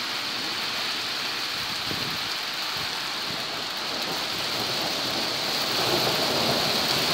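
Heavy thunderstorm rain pouring down in a steady hiss, which swells louder about two-thirds of the way through.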